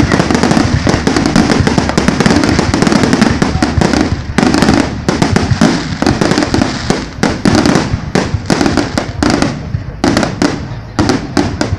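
Aerial fireworks bursting in rapid succession: a dense, nearly continuous barrage of bangs and crackles that breaks into more separate bursts after about four seconds.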